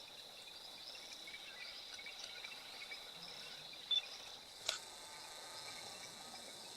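Insects trilling in a steady high continuous tone, with one short, louder chirp about four seconds in and a single sharp click shortly after.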